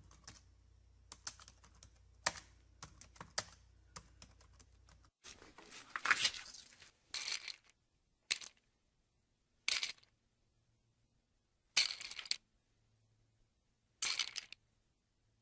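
Typing on a computer keyboard, quick irregular key clicks over a low hum, cut off about five seconds in. It is followed by a different sound: six short, separate noisy strokes such as rustling or scraping, one to two seconds apart.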